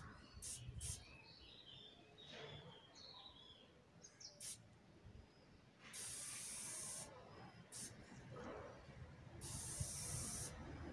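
Aerosol spray paint can hissing in short bursts, with two longer sprays of about a second each, about six seconds in and again near the end.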